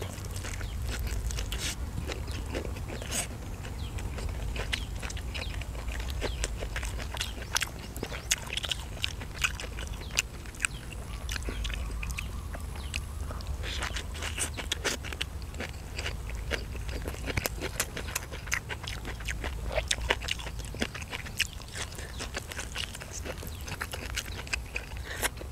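A person chewing grilled chicken close to the microphone: many small biting and smacking clicks, several a second, over a steady low rumble.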